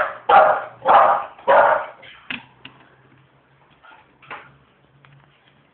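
Staffordshire bull terrier puppy barking four times in quick succession, then a few softer, shorter barks, over a faint steady low hum.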